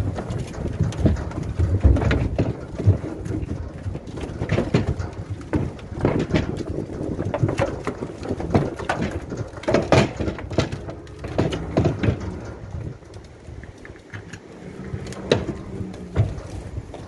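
Cattle hooves knocking and clattering irregularly on a livestock trailer's ribbed floor as the animals walk off it.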